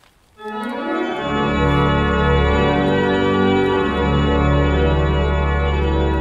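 Church organ begins to play about half a second in, sounding full sustained chords, with deep bass notes joining about a second in.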